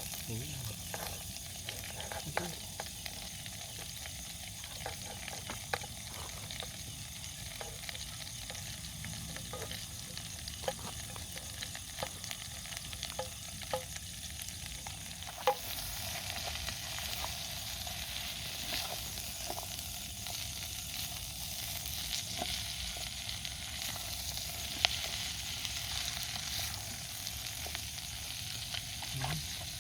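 Food frying in a pan on a camp stove, sizzling steadily with scattered sharp clicks, the sizzle growing a little louder about halfway through.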